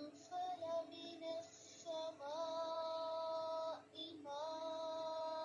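A woman's voice faintly reciting a Quranic word in a drawn-out chant: a few short sung syllables, then two long notes, each held at one level pitch.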